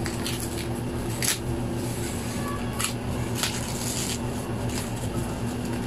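Thin white foam packing wrap rustling and crackling in short, irregular bursts as hands tear and peel it off a boxed machine, over a steady low background hum.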